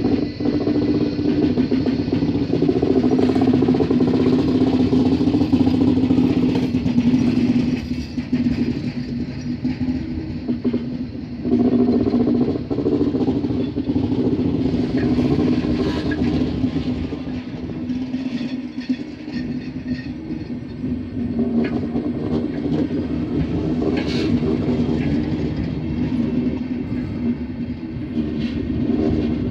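Railway coaches of a measurement train rolling past close by: a steady rumble of steel wheels on the rails, with a constant hum and scattered clicks.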